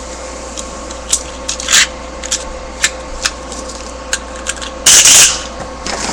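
A Storm Pegasus Beyblade with a rubber flat tip spinning in a plastic stadium, giving scattered sharp clicks as it knocks about. About five seconds in there is one loud, brief scraping rush.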